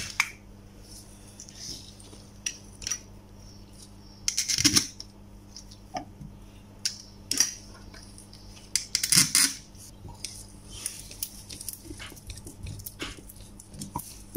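Light metallic clicks and knocks from a small 12 V tyre-inflator air compressor being handled and turned over during reassembly, with louder bumps about four and a half and nine seconds in.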